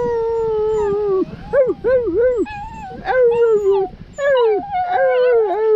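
Small dog howling and yowling: one long howl, a few short yelps, then three more howls, each dropping in pitch at the end. It is the dog 'talking' back to its owner's coaxing.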